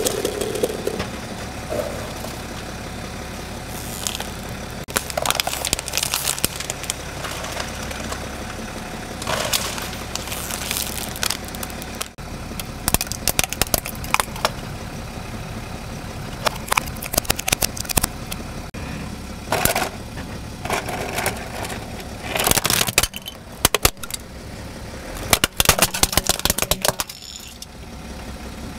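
Car tyre rolling over plastic objects and crushing them, with sharp cracks and crackling of breaking plastic heard again and again, about eight times, over the car engine's steady low running.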